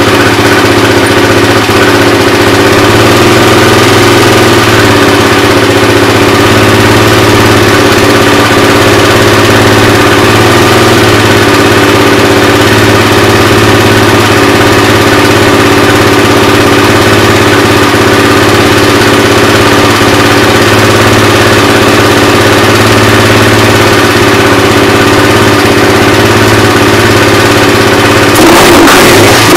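Suzuki QuadSport ATV's single-cylinder four-stroke engine idling steadily, running again now that a replacement CDI has brought back its spark. Near the end it gets louder as the throttle is opened briefly.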